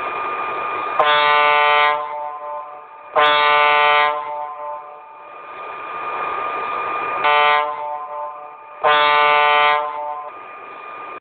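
A vehicle horn sounds four blasts over a steady engine rumble. The third blast is short and the other three last about a second each.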